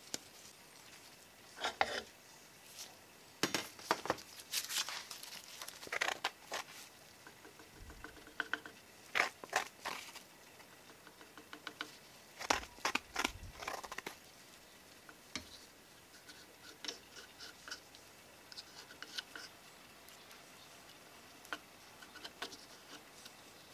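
Wooden stir stick scraping and dabbing sawdust-thickened epoxy, mixing it on a piece of cardboard and spreading it onto the end of a wooden spear shaft. Irregular short scrapes and taps, busiest in the first half and sparser later.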